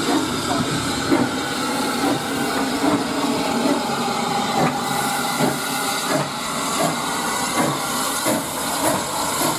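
SE&CR H class 0-4-4 tank engine No. 263 hissing steam. In the second half it gives regular chuffs, about one every two-thirds of a second, as the train moves off.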